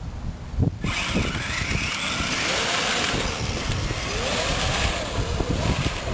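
Twin Castle Creations 5700 brushless electric motors of a remote-control Barbie Jeep whining under throttle: the pitch climbs sharply from about a second in, then rises and falls again a few seconds later, over a steady rushing noise.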